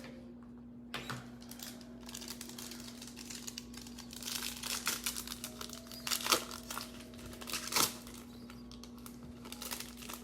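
A foil trading-card pack wrapper being torn open and crinkled by hand. The crackling gets denser toward the middle, with two sharp loud crackles about six and eight seconds in.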